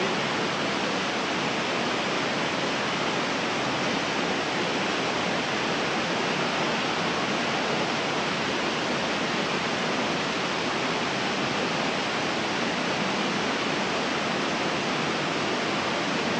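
Artificial rock waterfall splashing steadily over stone ledges into a shallow pond.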